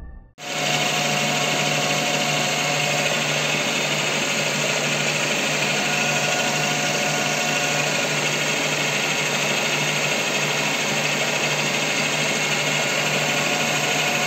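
Metal lathe turning a steel shaft, an insert-tipped cutting tool taking a steady cut: a continuous machine-and-cutting noise with a low hum that starts abruptly about half a second in.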